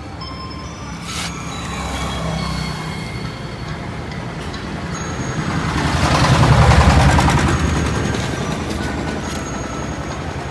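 A motor vehicle's engine passing close by, getting louder to a peak about six to seven seconds in, then fading away.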